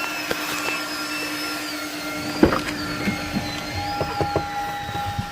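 Car engine running with a steady, slightly wavering high whine from the power steering pump, which had run low on fluid and has just been topped up. A single sharp knock about two and a half seconds in, then a few small clicks.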